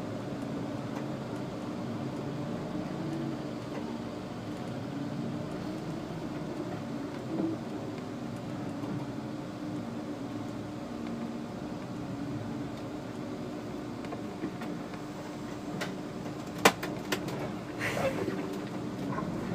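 SOR NB 12 City city bus running at low speed, heard from the driver's cab as a steady engine drone with a low hum. A sharp click sounds about three-quarters of the way through, followed by a few softer clicks.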